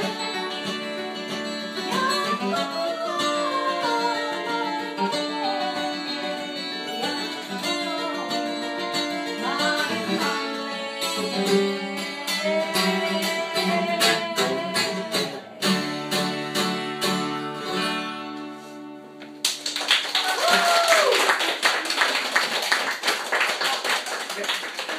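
A woman sings a Finnish folk song over fingerpicked acoustic guitar; the voice ends about two-thirds of the way through, and the guitar plays a few closing notes and stops. Then applause breaks out, with a brief whoop in it, near the end.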